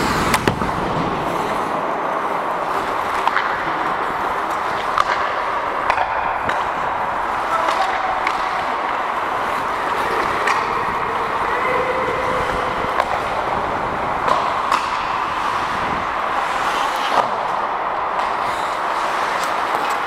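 Ice hockey skates gliding and scraping on rink ice, a steady hiss, with scattered sharp clacks of sticks and puck.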